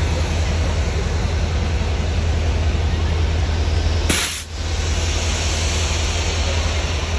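Diesel locomotive running, a steady low rumble under a dense rushing noise. The sound cuts out briefly with a short hiss about four seconds in.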